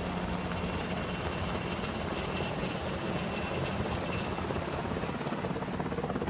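Helicopter rotor noise, a steady rapid chop holding at an even level.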